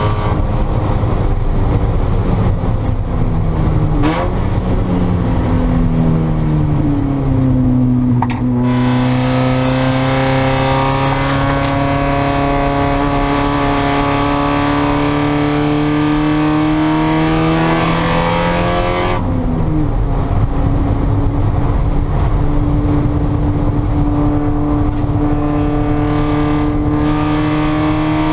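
Spec Miata race car's four-cylinder engine at racing speed. Its pitch falls over the first several seconds as the car slows through downshifts, then climbs slowly in one long pull. It drops sharply with an upshift about two-thirds of the way through, then climbs again. A hiss of wind or tyre noise rides over the engine through the long pull.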